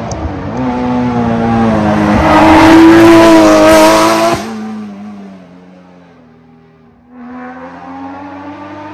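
Rally car engine at full throttle passing close by on a special stage, its pitch and loudness rising to a peak about three seconds in, then dropping away sharply and fading as the car goes off down the road. About seven seconds in, an engine is heard again further off, accelerating.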